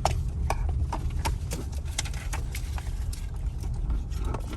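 A car engine idles, heard as a low rumble from inside the cabin. Over it comes a string of irregular, sharp clicks and ticks.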